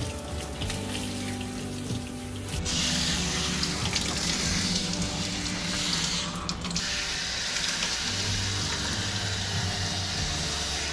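Water spraying from a handheld grooming-tub sprayer onto a wet dog's coat in a stainless-steel tub, a steady hiss that starts about two and a half seconds in, stops for a moment around six seconds, then runs on. Background music with held tones plays underneath.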